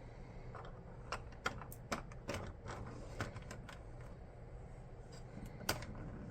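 Irregular small clicks and taps of hard plastic being handled, as a toy jet is set onto its wall-mounted plastic stand, with one sharper click near the end.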